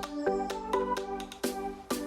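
Background music: electronic track with pitched synth notes over a steady beat.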